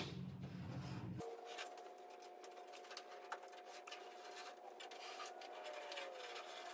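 Faint scratching and light ticks of a marker pen drawing on the primed steel of a car's inner roof frame.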